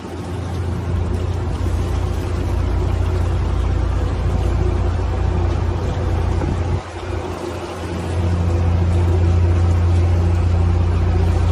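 Fishing boat's engine running steadily, a deep hum under a rush of wind and water. The sound dips briefly about seven seconds in, then comes back a little louder.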